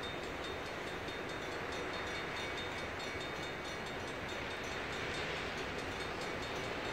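Vintage diesel freight locomotives, a GP9RM and a GMD1, approaching far down the track: a steady low engine rumble with no horn.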